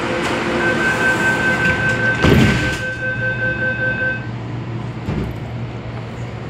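MTR A-Train door-closing warning tone sounding steadily for about three and a half seconds, with the sliding passenger doors shutting with a loud thud partway through it. A second, softer thud follows near the end.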